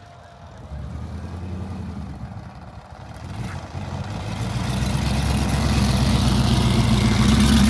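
Supercharged V8 of a lifted Dodge Challenger Hellcat running at low revs as the car creeps off the grass and drives toward the listener, the engine note growing steadily louder over the second half.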